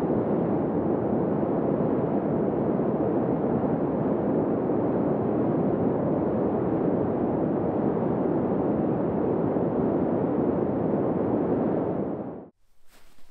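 A steady, low rushing noise that stops abruptly about twelve and a half seconds in, followed by a few faint crackles near the end.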